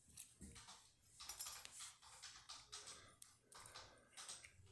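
Faint, irregular light clicks and scrapes of small metal lock parts and tools being handled while a pin-tumbler lock is taken apart.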